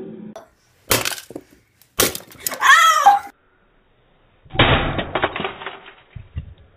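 A small plastic battery gadget being smashed: two sharp cracking blows about a second apart, then a brief high-pitched voice. A little later the crash plays again slowed down, duller and deeper, with a rapid patter of breaking pieces.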